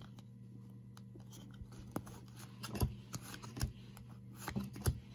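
Football trading cards being flipped through by hand, each card slid from the front of the stack to the back: soft scraping of card stock with several sharp clicks as the card edges snap past each other, over a low steady hum.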